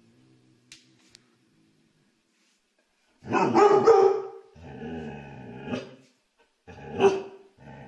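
A dog growling and barking. There is a burst of loud barking about three seconds in and a single bark about seven seconds in, with long growls between them.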